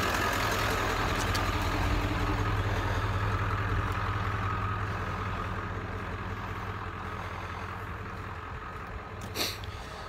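A vehicle engine idling steadily, growing gradually fainter. A brief scrape near the end.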